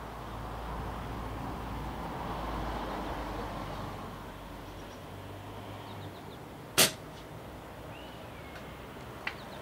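A Logun Solo PCP air rifle firing a single shot about seven seconds in: one sharp, loud crack. A much fainter click follows about two and a half seconds later, over a steady low background hum.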